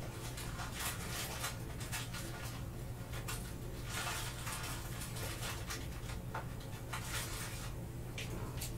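Trading cards in clear plastic sleeves handled by black-gloved hands: irregular short crinkles, slides and scrapes of plastic and card, over a steady low hum.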